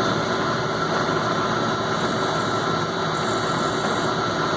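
Old Logan metal lathe running steadily, its motor and drive giving an even mechanical hum with a thin, steady high whine over it.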